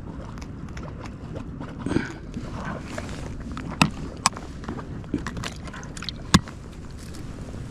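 Steady outdoor noise of wind and lapping water, broken by a few sharp clicks and knocks about halfway through.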